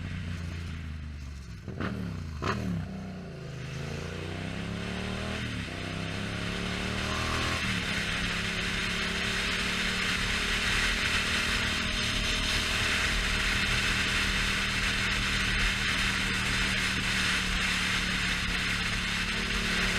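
Yamaha FZ-07's parallel-twin engine pulling up through two gears, its pitch climbing twice, then settling into a steady cruise under loud wind noise.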